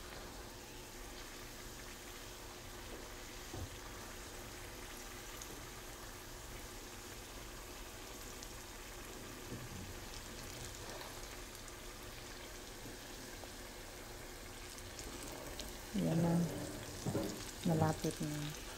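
Bananas frying in shallow oil in a nonstick pan: a steady, quiet sizzle, with occasional light taps and scrapes of a wooden spatula turning them. A voice is heard briefly near the end.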